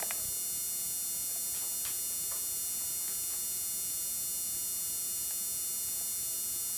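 Steady electrical hum and hiss of a home-video tape recording, with one sharp click right at the start and a few faint ticks a couple of seconds in.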